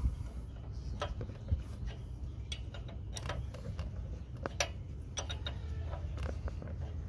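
Steel combination wrench clinking on a bolt head as its box end is fitted, turned and refitted: a string of irregular metal clicks over a low steady rumble.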